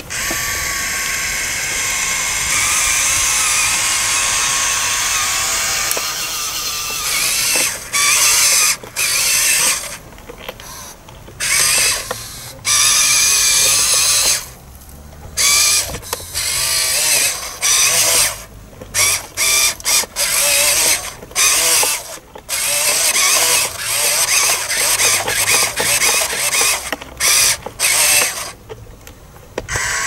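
Huina 1573 RC dump truck's small electric motors and plastic gearboxes whining as the tipper bed lifts and the soil load slides out. It runs steadily for the first several seconds, then in many short stop-start bursts as the controls are worked.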